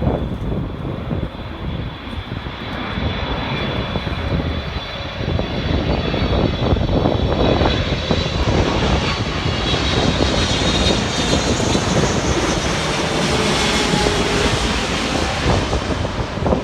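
Arriving airliner's engines passing by on approach: a steady high whine over a roar that builds to its loudest past the middle of the pass, with wind rumbling on the microphone.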